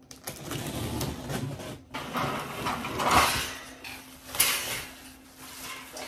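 Handling noise as boxed bird-cage parts are unpacked: continuous rustling of packaging with irregular knocks and clatters, the loudest about 2, 3 and 4.5 seconds in, over a faint steady hum.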